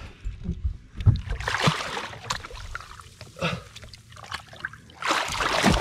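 Sea water splashing and sloshing at the side of a boat, with a knock about a second in and a louder splash near the end as a big released fish goes back into the water.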